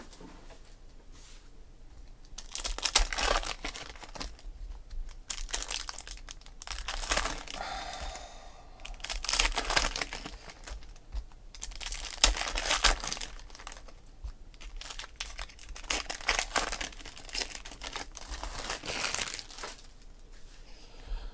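Foil trading-card pack wrappers being torn open and crinkled by hand, in repeated short bursts of crackle after a quiet first couple of seconds.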